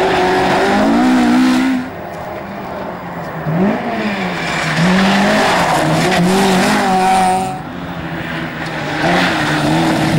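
Rally car engines revving hard through a tight dirt section, the engine note repeatedly climbing and falling with throttle and gear changes. The sound drops off sharply about two seconds in and again near the end, where one car gives way to the next.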